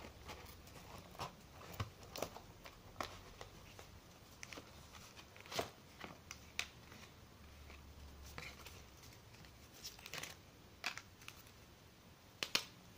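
Faint rustling and crinkling of paper and plastic packaging, with scattered small clicks and taps, as a polyester wallet is handled and taken off its cardboard insert.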